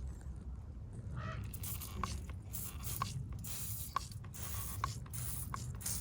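Trigger spray bottle being pumped onto a wheel about once a second from two seconds in, five pulls, each a sharp click with a short hiss of spray.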